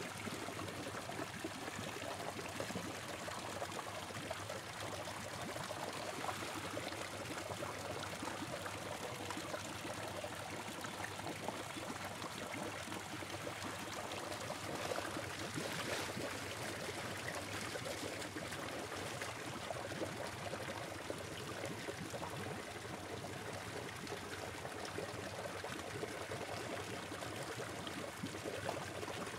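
A steady stream of water pouring from a pipe and splashing into a tank of water, a continuous even rush.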